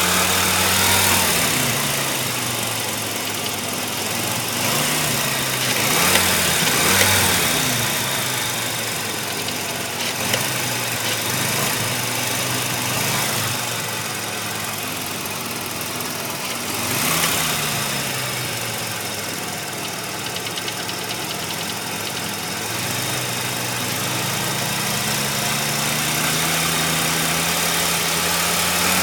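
1985 Mazda RX-7's rotary engine idling warm, revved briefly a few times and rising again near the end, with an engine knock that the owner hopes is a pulley and that shows only once the engine is warmed up.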